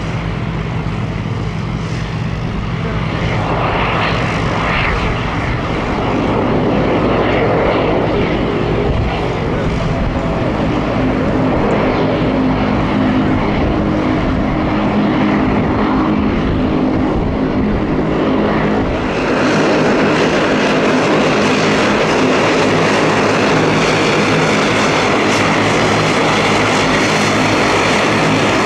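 de Havilland Canada Dash 8 turboprop taxiing at low power: a steady drone from its two turbine engines and spinning propellers. The drone steps up louder and brighter about two-thirds of the way through.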